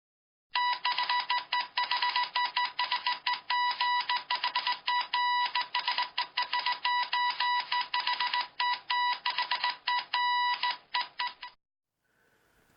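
An electronic beep tone keyed on and off rapidly in a run of short and long pulses, several per second, for about eleven seconds, then stopping abruptly.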